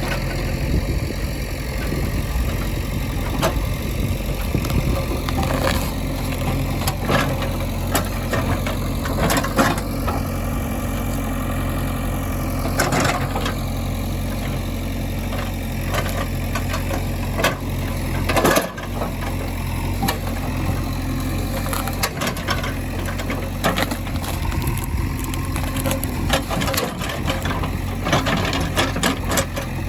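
Diesel engines of a backhoe loader and tractors running steadily, with frequent clanks and rattles from the machinery and one loud knock a little past the middle.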